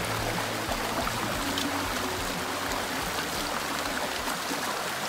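Small rocky forest stream rushing and splashing steadily over a little cascade of stones.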